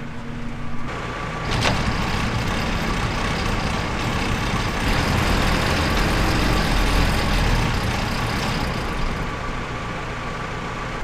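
Tractor-driven feed mixer wagon being started up and run, a dense mechanical clatter and rumble over the tractor engine that builds about a second in, with a single sharp knock shortly after. The mixer's new chain is running without any nasty noises.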